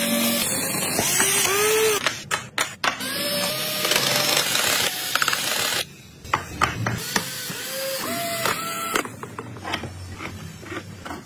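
Cordless drill driving small screws into a wooden wheel hub, its motor spinning up and down in several short runs, pitch rising and falling with each run, with sharp clicks between runs. Near the end, lighter clicks and knocks of wooden parts being handled.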